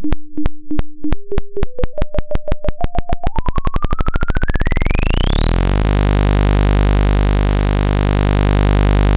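Synthesized oscilloscope-drawing signal of sawtooth and sine waves. A repeating pulse speeds up from about four beats a second into a continuous buzz, while a tone steps up in pitch, then glides up to a high steady whistle about six seconds in.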